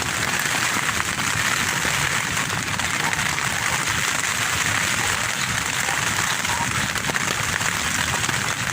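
Nylon tent walls and rain fly rustling and flapping steadily in gusty wind, heard from inside the tent.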